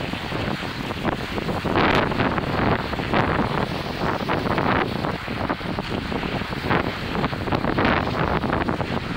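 A person glissading, sliding seated down a snow slope: snow hissing and scraping under the body, with wind buffeting the microphone, coming in uneven surges.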